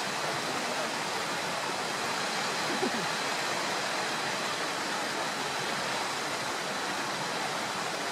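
Steady, even rush of water from a waterfall pouring down a rock face.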